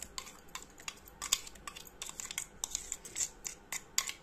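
Spoon scraping and tapping against the inside of a steel mixer-grinder jar while scooping out thick green coriander chutney: a string of irregular clicks and scrapes, several a second.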